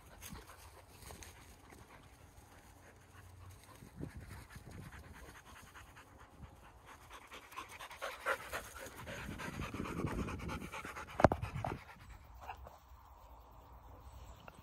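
Dogs panting hard with quick, even breaths, out of breath from running and playing; the panting grows louder past the middle. A single sharp knock a little before the end is the loudest sound.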